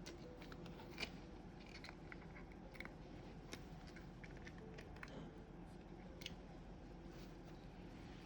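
Faint, irregular light clicks and taps of a cat batting and pawing at a small lid, over a low steady room hum.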